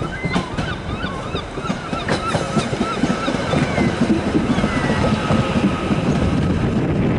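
Merseyrail Class 777 electric multiple unit running into the station past the platform: a steady rumble of wheels on the rails that grows louder as the cars go by. A faint steady whine comes in after about five seconds, and a run of short high chirps sounds over the first three seconds.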